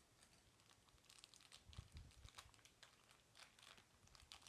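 Faint crinkling of a thin plastic wrapper being pulled open and handled in the hands, in quick irregular crackles.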